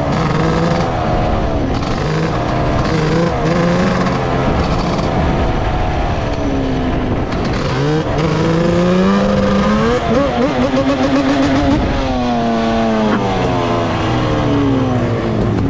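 Several vehicle engines revving and running at once, their pitch climbing and dropping repeatedly, with a wavering rise about two-thirds of the way through.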